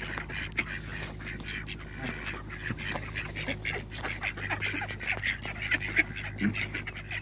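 A flock of mallard ducks quacking and chattering, a dense run of short, rapid calls overlapping one another.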